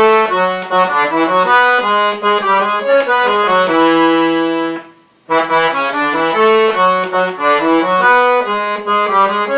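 Piano accordion playing a melody phrase over sustained lower notes. It breaks off briefly about five seconds in, then plays the phrase again.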